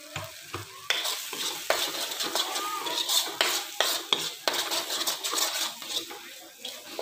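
A spatula scraping and stirring a thick cashew-almond masala paste in a steel kadai, with the paste sizzling as it roasts on high heat. The scraping strokes come fast and irregular, starting about a second in.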